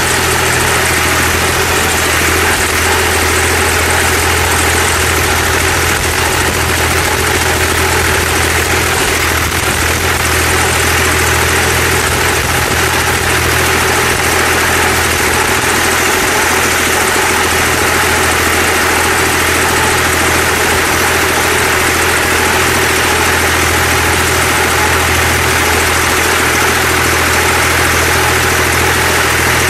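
BJR F5000 tractor engine running at a steady speed while the tractor drives along, heard from the driver's seat, with a strong low hum that stays constant throughout.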